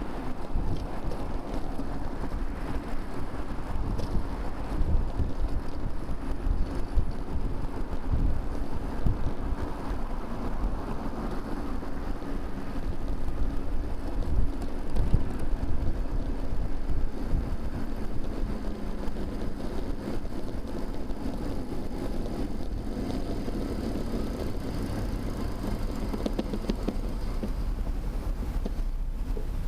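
Wind rushing over a bicycle-mounted camera's microphone while riding, mixed with the rumble of motor traffic on a multi-lane road; in the second half a vehicle engine hum rises for several seconds.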